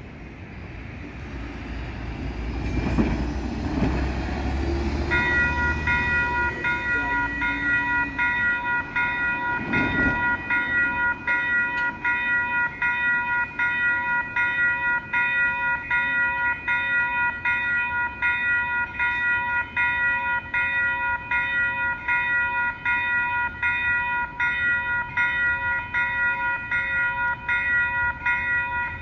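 Level crossing warning bell starting about five seconds in and ringing in a fast, even pulse for the rest of the time. Before it starts, a low rumble builds and fades.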